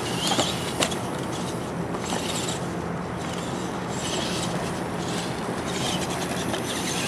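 Radio-controlled monster truck driving, its electric motor whining in short high-pitched throttle bursts about every two seconds over a steady outdoor hiss. A short sharp knock comes a little under a second in.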